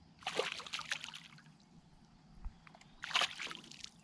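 Water splashing and sloshing in two short bursts about three seconds apart.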